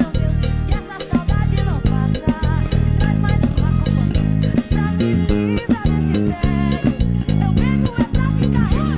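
Live band music as heard in a bass player's in-ear monitor mix: electric bass guitar loud and in front, playing a moving line, with guitar and drums behind it.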